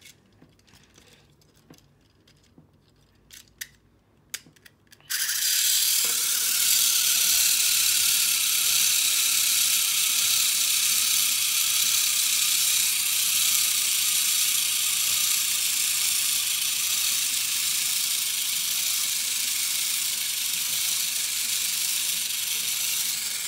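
A few light plastic clicks as the robot is handled and its battery connector pushed in, then about five seconds in the small geared DC motor of a Discovery build-it-yourself walking robot switches on with a sudden, loud, high-pitched whir. The motor and plastic cog train then run steadily, driving the robot's legs.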